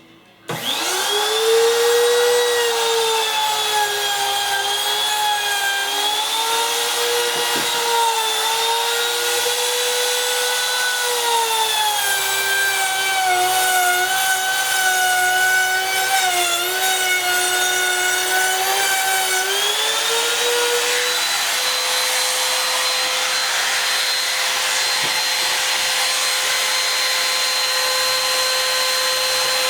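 Electric power tool switched on, its motor running at high speed with a whine that wavers and dips in pitch as it works against wood, then runs steady and unloaded at a higher pitch for the last third.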